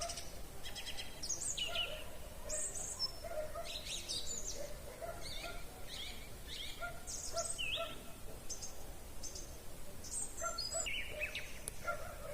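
Several songbirds singing together in an evening chorus: many short overlapping chirps, whistles and trills from different birds, with no break in the singing.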